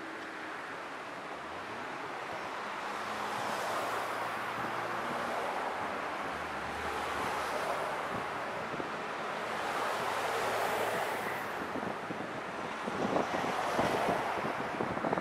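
Road traffic passing over the bridge: the tyre and engine noise of cars and a truck swells and fades several times. Near the end, a run of short taps comes in from footsteps walking close by.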